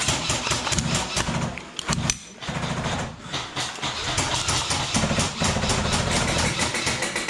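Airsoft guns firing rapid full-auto bursts, several stretches of fast rattling broken by short pauses.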